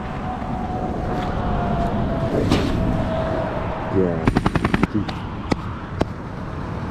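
Motorway traffic passing, with a steady drone that falls slightly in pitch, and wind noise. A little after four seconds comes a quick rattle of about eight sharp clicks, then two single clicks.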